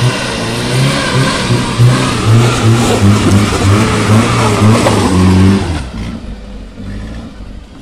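Loaded Suzuki Carry pickup's engine revving hard as it climbs a steep, rough dirt track, its pitch rising and falling with the throttle over the crunch of tyres on gravel. The sound drops away sharply about six seconds in as the truck passes and moves off up the hill.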